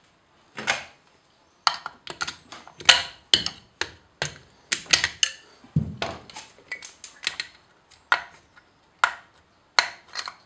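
Metal tools knocking and scraping against a seized bucket tappet in a VAZ-2109 cylinder head as it is worked loose: a string of irregular, sharp metallic clicks and knocks. The tappet is jammed in its bore by burrs raised when a valve-adjusting shim cracked.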